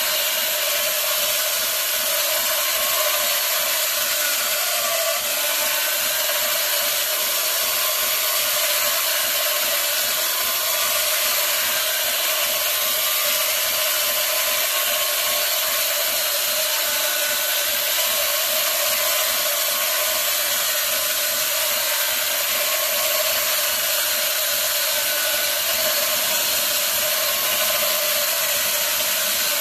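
220 V electric chainsaw running steadily under load, its chain cutting through a masonry block, with a constant whine and no change in speed.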